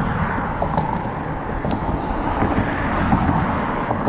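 Steady rumble of road traffic passing close by, with a few faint clicks.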